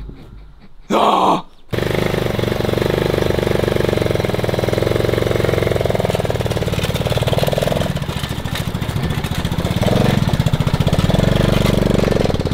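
Small motorcycle engine starting: a short burst about a second in, then it catches and runs steadily with a rapid pulsing beat, the revs shifting slightly around eight and ten seconds in.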